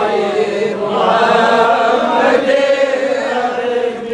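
A group of men chanting a Kashmiri devotional song (a naat in praise of the Prophet Muhammad) together, many voices in long, drawn-out lines.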